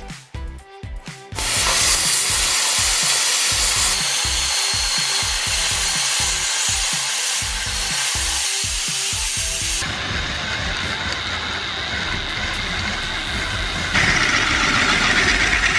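A handheld plasma cutter hissing steadily as it cuts through a sheet of aluminium. Near the end a cordless drill boring through the metal takes over, louder. Background music with a beat plays under both.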